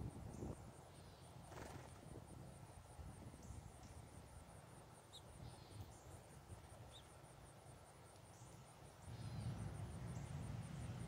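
Faint outdoor ambience: a cricket-like insect trilling in a rapid, even, high pulse, with a few brief high bird chirps in the middle. A low rumble grows louder near the end.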